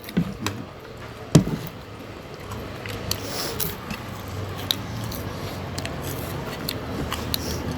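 Eating noises at a shared meal of biryani: scattered sharp clicks and scrapes of dishes and utensils, the loudest knock about a second and a half in, over a low steady hum.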